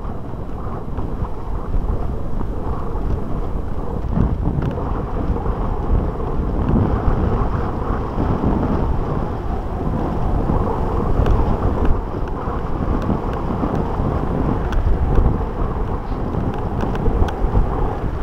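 Wind buffeting the microphone of a camera riding on a moving mountain bike, mixed with the steady rumble and rattle of the bike rolling over a dirt track.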